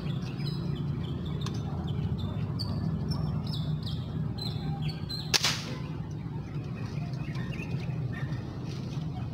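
A single sharp shot from an airgun rigged for fishing, fired down into the water about five seconds in. Before it, birds chirp with many short falling notes, over a steady low rumble.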